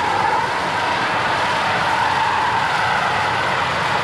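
Steam from a steam locomotive escaping in a steady hiss, with no beat of exhaust beats.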